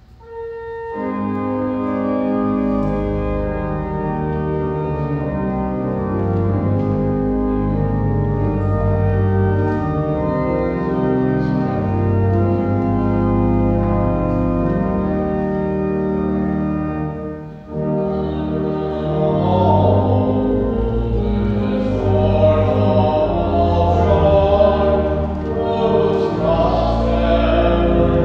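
Church organ playing held chords over a moving bass line, the opening of a hymn. About two-thirds of the way through it breaks off for a moment, then starts again and voices begin singing with it.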